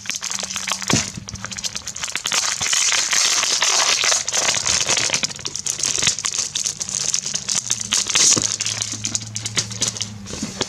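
Plastic packaging crinkling and rustling steadily as it is handled and unwrapped, with many small crackles.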